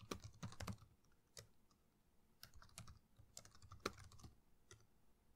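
Faint typing on a computer keyboard: quick runs of key clicks with short pauses between them.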